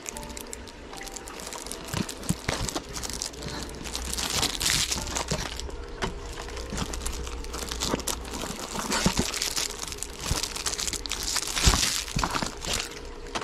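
Plastic packaging of fishing lures crinkling and rustling as the packs are handled and hung on display hooks, with scattered clicks and one sharp knock near the end.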